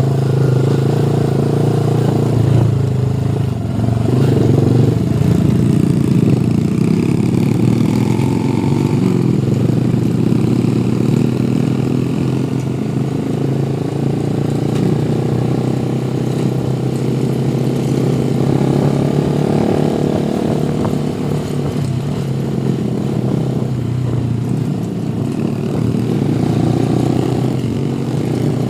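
Motorcycle engine running steadily as the bike rides along, its pitch shifting a little with the throttle.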